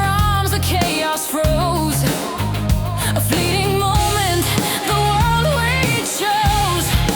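Alternative metal song: a dense band mix of heavy guitars and drums, with a lead melody line that bends and wavers in pitch above it.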